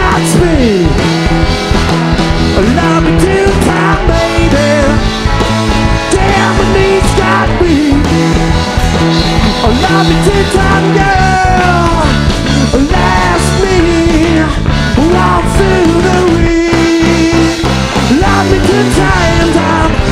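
Live rock band playing an instrumental passage. A lead line of bending, sliding notes runs over a moving bass line and drums.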